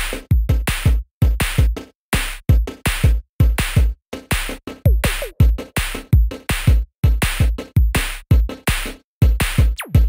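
Electronic background music with a drum-machine beat: short, choppy hits with heavy kick drums, roughly two to three a second, separated by brief silences.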